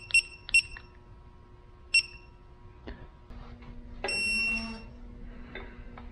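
Digital angle torque wrench beeping as an EJ25 cam sprocket bolt is turned through its 45-degree angle step. Two quick beeps near the start and one about two seconds in are followed by a longer beep about four seconds in, the wrench's signal that the set angle is reached.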